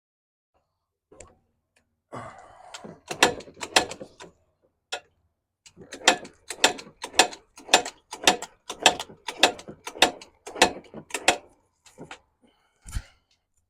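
A Can-Am DS90 quad's kickstarter being kicked over and over, about two ratcheting strokes a second, with the engine turning but not firing. The owner takes this for an engine with no compression, from a valve or piston ring problem.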